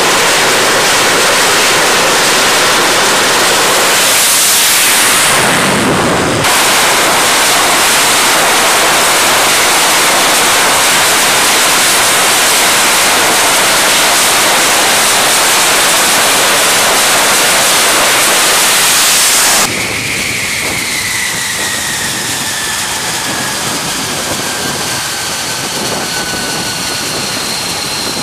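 F-35C Lightning II's Pratt & Whitney F135 turbofan running, a loud, steady rush of jet noise. About twenty seconds in the noise drops a little and a high whine slowly falls in pitch.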